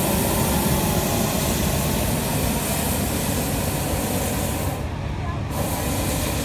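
Hot air balloon's propane burner firing with a loud, steady rushing noise, shut off for about half a second around five seconds in and then fired again.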